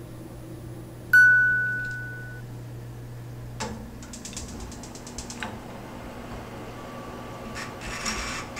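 A single bright ding about a second in, fading away over about a second. Then the clicking of an oven's control knobs and mechanical timer dial being turned by hand, in quick runs of clicks.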